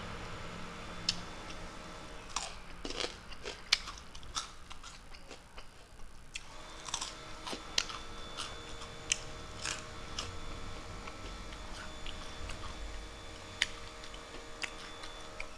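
Close-up chewing of rice and fried soya chunks eaten by hand, with scattered short sharp clicks from the mouth and fingers. A faint steady hum sits underneath.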